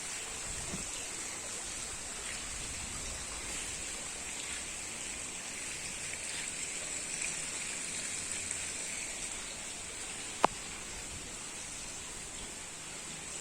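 Steady hiss-like background noise with a constant high-pitched band, broken by one sharp click about ten seconds in.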